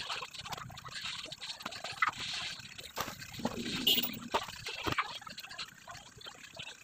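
Irregular light clicks, taps and scrapes of hand tools and screws as an amplifier's main circuit board is fitted back into its chassis and screwed down.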